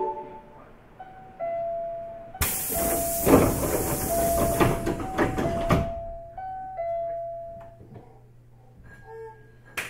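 Pneumatic door engines of a Hankyu 8300 series commuter train closing the doors, with a loud hiss of released air and rattling that lasts about three seconds. A simple electronic melody of stepping tones plays throughout, and a steady low hum is left once the hiss stops. There is one sharp knock near the end.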